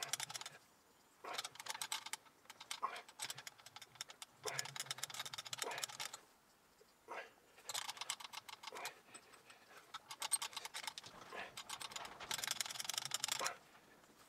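Milling machine spindle being turned back and forth by hand, giving short runs of rapid light mechanical clicking, about seven bursts of a second or so each.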